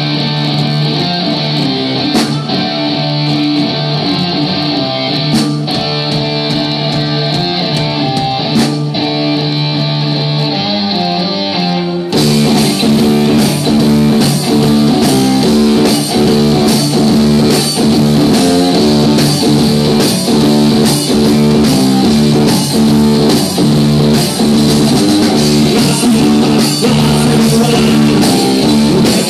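Live rock played by an electric guitar and a drum kit: a repeating guitar riff with only a few single drum hits, then about twelve seconds in the full kit comes in with a steady beat and the music gets louder.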